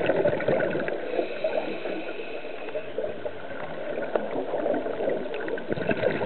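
River water gurgling and washing around a submerged microphone: a steady murky rush full of small crackles and clicks.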